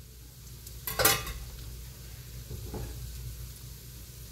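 Kitchenware clattering once, sharply with a brief ring, about a second in, then a fainter knock a little before three seconds, over a low steady hum.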